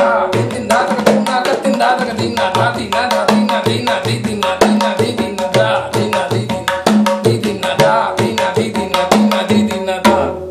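Tabla playing a fast composition in the bols dha dha tirakita dha dha tuna ta ta tirakita. The dayan plays rapid strokes, with ringing bayan bass strokes recurring about once a second.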